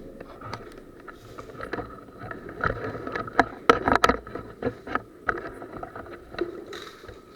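Irregular clicks and knocks over a faint rustle, with a cluster of sharper ones about three to four seconds in.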